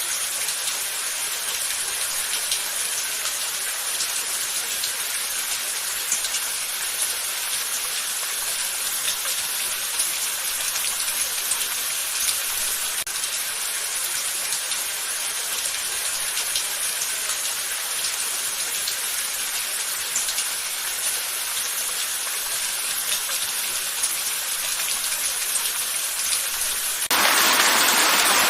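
Steady rain falling: a dense, even hiss of drops with a fine patter of individual hits. Near the end it turns louder and fuller for about a second.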